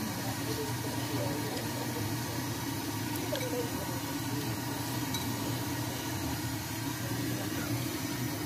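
Steady low hum of street and stall background noise, with a few faint clinks of wooden chopsticks against a ceramic bowl as noodles are tossed.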